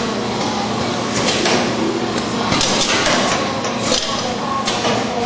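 Packline PAO rotary cup packaging machine running: a steady mechanical noise with a short clattering stroke about once a second as the turntable indexes the cups through the station.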